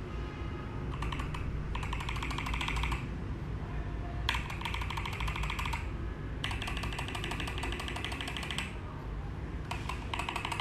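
Typing on a mechanical keyboard fitted with MMD Holy Panda V2 tactile switches: five quick runs of keystrokes with short pauses between them.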